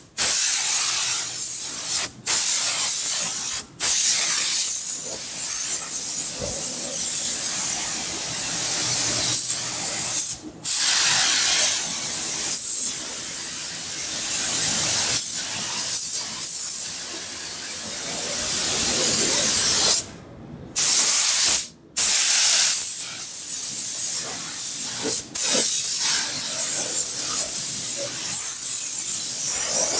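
Gravity-feed paint spray gun hissing with compressed air as it sprays black paint onto a truck fender. The hiss cuts out briefly about five times as the trigger is let go between passes.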